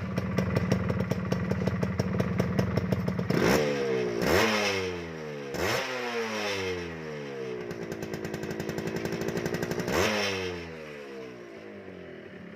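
Yamaha RX-King 135's two-stroke single-cylinder engine being revved: four quick throttle blips, each winding back down, then settling to a steady idle near the end.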